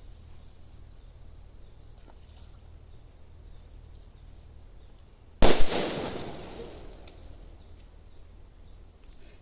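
A single-bang 'one sound' firecracker exploding: one sharp, loud bang a little over five seconds in, its echo dying away over about a second and a half.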